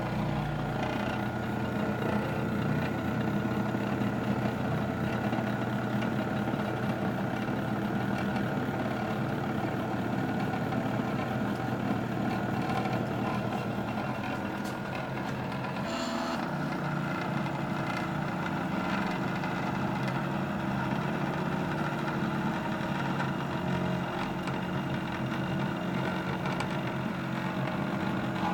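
NEMA stepper motors of a DIY four-axis CNC hot-wire foam cutter running through a cut: a steady hum and whine of several tones, which shift in pitch about halfway through as the motion changes.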